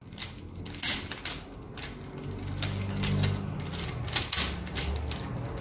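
Plastic Rubik's cube being twisted by hand: an irregular run of clicks and rattles as its layers turn, the sharpest about a second in and again a little after four seconds.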